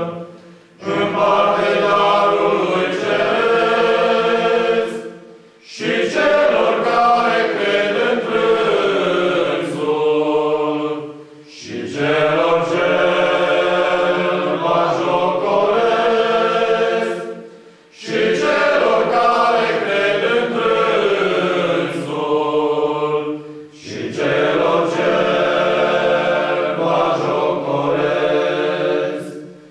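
Male choir singing a cappella in several parts, in phrases of about six seconds, each followed by a brief pause for breath.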